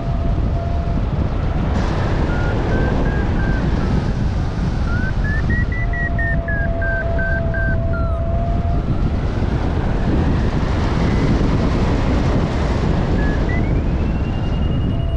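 Strong wind rushing over the microphone of a hang glider in fast flight. An audio variometer sounds over it, with a steady low tone in stretches and a higher beeping tone that rises and falls in pitch: its sink and climb signals as the glider dives and pulls up.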